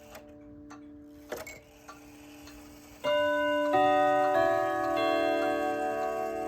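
1933 Junghans/HAC wall clock ticking, with a louder clunk from the movement about a second in. About three seconds in its long steel chime rods begin striking a quarter-hour chime melody, one ringing note roughly every two-thirds of a second, much louder than the ticking.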